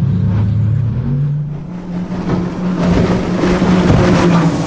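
Twin-engined high-speed police boat accelerating hard from a standing start. The engine note steps up in pitch about a second in and then holds steady, while the rush of water and wind builds from about two seconds in.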